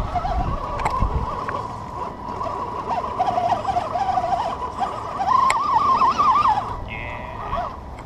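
Electric drivetrain of an Axial Deadbolt 1/10-scale RC crawler whining as it climbs over rocks, the pitch wavering up and down with the throttle. The whine is strongest about five to six and a half seconds in.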